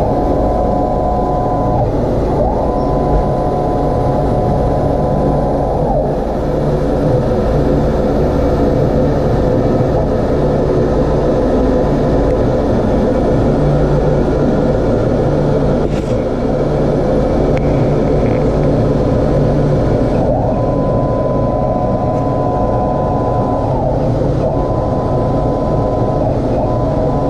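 Laser cutter cutting a sheet of wood: a loud, steady machine hum throughout. Two steady high whining tones switch on and off in stretches of a few seconds, near the start and again from about twenty seconds in, as the head moves.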